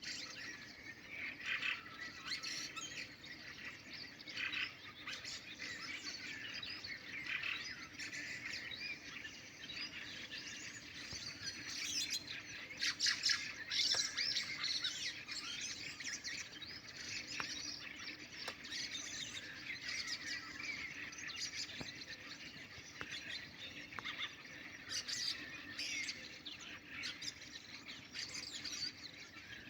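Nightingales singing at night: a dense, unbroken run of rapid phrases and sharp notes, loudest about halfway through.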